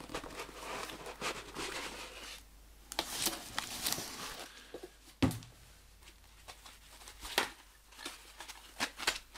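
Cardboard box lifted off and polystyrene foam packing blocks handled: rustling and scraping of cardboard and foam, with one sharp knock about five seconds in and a few light clicks later.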